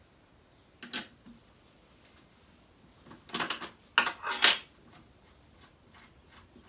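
Small metal parts clinking and knocking as the spindle sander's drum fittings are handled: one clink about a second in, then a quick cluster of clinks and knocks a little past three seconds in.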